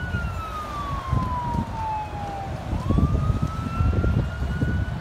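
Fire engine siren on a slow wail: the pitch falls for nearly three seconds, climbs back up, and starts to fall again near the end, over a low, uneven rumble.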